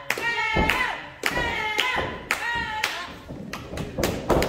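A small crowd clapping in a steady rhythm, about two sharp claps a second, with voices shouting between the claps.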